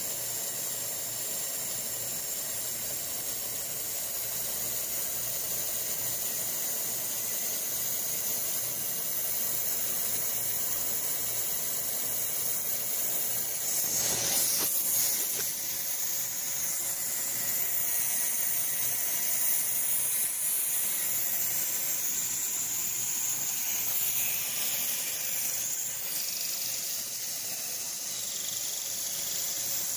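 Mist coolant spraying with a steady hiss while a milling machine's end mill cuts a 3D-printed plastic part, with faint steady tones under the hiss. A brief louder rush comes about halfway through.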